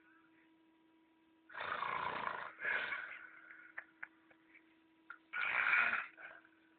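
A man snoring loudly in his sleep, heavy enough to sound like a lion roaring: two long snores about four seconds apart, the first followed at once by a shorter one.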